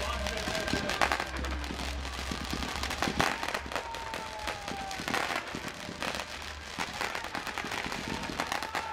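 A multi-shot fireworks cake firing at ground level, sending up a rapid, uneven run of pops and crackles. Thin whistling tones run through it, one sliding slowly down in pitch about three seconds in.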